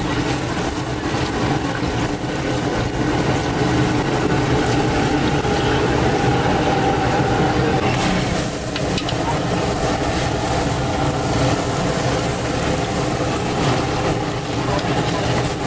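Bhature deep-frying in a large kadai of hot oil, the oil sizzling steadily as the dough puffs. Underneath runs a steady, low mechanical hum.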